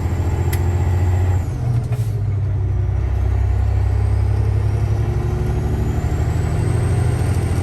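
Semi truck's diesel engine running while driving, heard from inside the cab. A high thin whine over the engine falls about a second and a half in, and the engine note dips, then both build slowly again.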